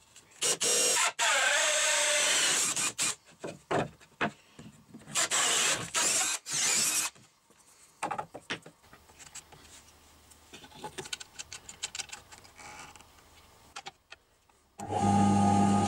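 A hand drill with a red hole saw cutting through an MDF board in several loud bursts, then lighter clicks and rattles of handling. Near the end an electric motor starts with a steady hum.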